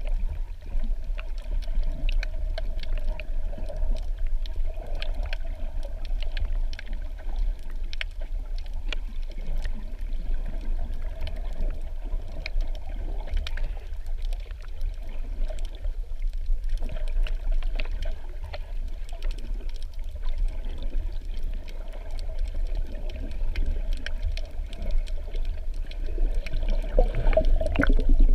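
Muffled underwater ambience picked up by a submerged camera: a steady low rumble with many scattered sharp clicks. Near the end there is a louder churn of moving water.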